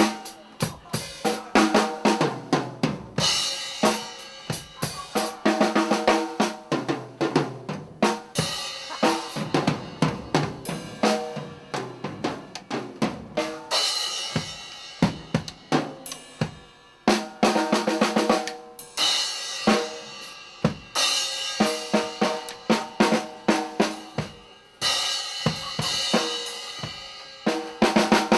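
A drum kit played with a band: rapid snare and bass-drum hits under crashing cymbals and hi-hat, with other instruments sounding underneath.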